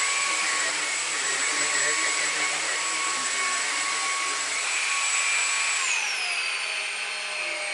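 Numatic Henry Quick cordless vacuum cleaner running on a mattress: a steady rush of suction with a high motor whine. About six seconds in the whine drops in pitch and settles lower as the motor slows to a lower speed.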